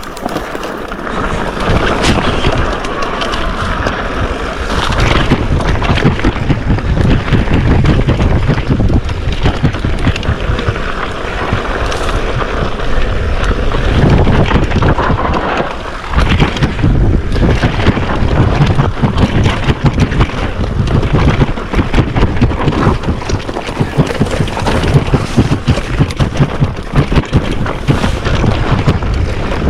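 Wind buffeting the microphone: a loud, rough, continuous rumble.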